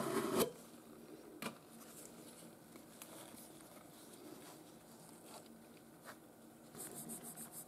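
Metal tin of Nevr-Dull wadding polish being handled open: a loud scraping clatter of the lid at the start and a sharp knock about a second and a half in, then soft rustling as gloved fingers pull cotton wadding from the tin. Near the end a fast regular rubbing starts, about six strokes a second.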